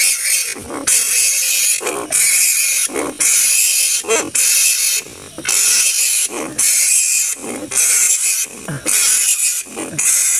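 Large flying foxes (kalong) screeching and squabbling: harsh, rasping calls repeating about once a second with short breaks between them. It is a recorded colony call used as a hunting lure to draw the bats in.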